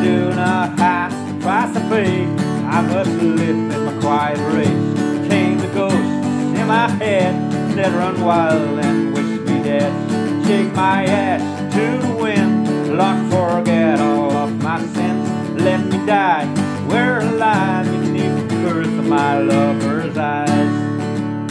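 Steadily strummed acoustic guitar chords with a harmonica on a neck rack playing a melody over them, its notes bending up and down.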